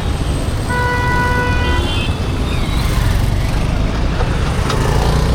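Road traffic running steadily, with a vehicle horn sounding one held honk for about a second, starting just under a second in, overlapped by a fainter, higher-pitched horn near its end.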